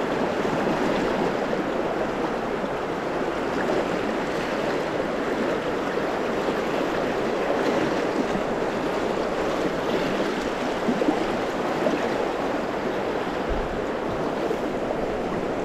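Shallow river rapids rushing, a steady, even roar of fast water over stones.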